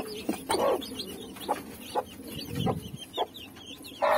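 Newly hatched chicks peeping continuously in quick, high chirps, with a mother hen clucking a few times, loudest about half a second in and again near the end.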